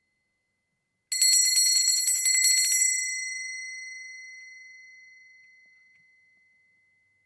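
Doorbell ringing: a metal bell struck very rapidly over and over for under two seconds, then left ringing and fading away over about four seconds.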